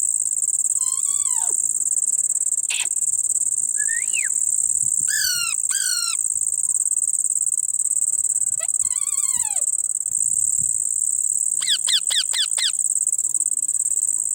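A steady high-pitched insect drone runs throughout, with a parrot's short gliding calls breaking in a handful of times: single calls, a pair, and a quick run of about five calls late on.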